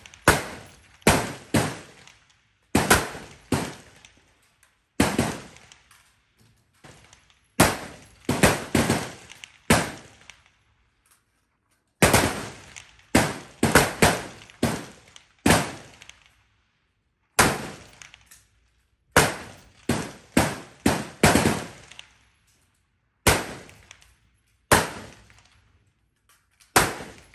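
Rifle gunfire from a line of shooters on a firing range: irregular single shots, now and then two or three close together, each followed by a short echoing decay.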